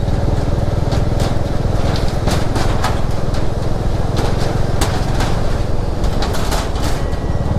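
Motorcycle engine running steadily at low speed, with irregular sharp clanks and knocks as the tyres roll over the loose metal plates of a suspension bridge deck.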